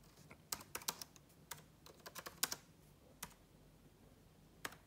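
Typing on the Anyware PhoneBook's built-in laptop-style keyboard: a quick, irregular run of keystrokes over the first two and a half seconds, then a couple of single taps.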